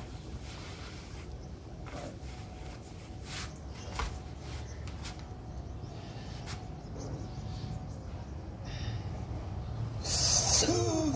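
A man breathing through a yoga breathing exercise: quiet breaths over a low background rumble, then about ten seconds in a loud, forceful breath with a wavering voiced tone in it.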